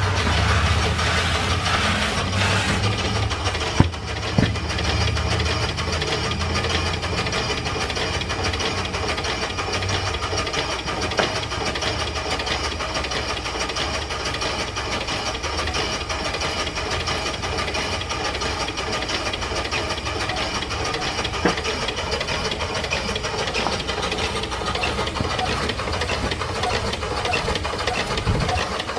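Small duplex steam pump running steadily on test, circulating water: a rapid, even clatter of its pistons and valve gear. A hiss and a low rumble in the first couple of seconds, and a few sharp knocks about four seconds in.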